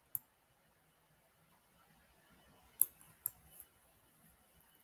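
A few computer mouse clicks: one just after the start, then three more in quick succession about three seconds in.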